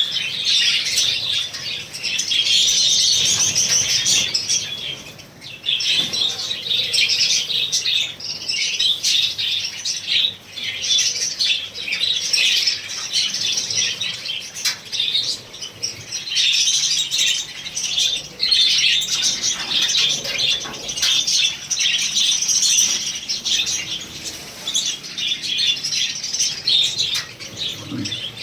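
A roomful of small parrots, lovebirds and budgerigars, chattering and screeching together in a dense, continuous high-pitched din that eases briefly a few seconds in.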